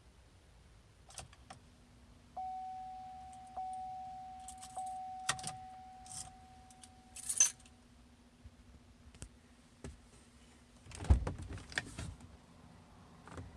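Keys jingling and clicking at the ignition of a 2010 Chevrolet Silverado, with a dashboard warning chime ringing three times about a second apart, each ding fading, over a faint steady hum. There is no starter click or cranking: the truck is not starting. Near the end a louder knock and rattle of the keys.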